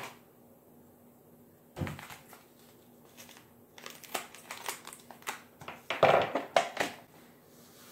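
Crinkling of a small plastic seasoning-style packet being handled and snipped open with scissors: a single knock about two seconds in, then scattered crisp crackles that grow louder around six seconds in as the scissors are set down on the wooden table.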